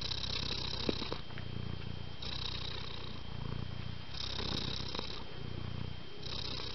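Domestic cat purring right up against the microphone, the purr swelling and easing in a cycle of about two seconds, with a couple of light clicks about a second in.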